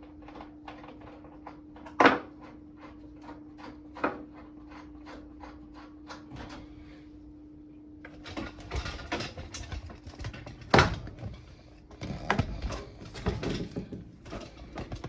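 Small hand tools and mounting hardware being worked on a microwave install: a run of light, fairly even clicks, sharp knocks about two and four seconds in, then busier clattering and handling from about eight seconds with another loud knock near eleven seconds. A steady low hum runs underneath.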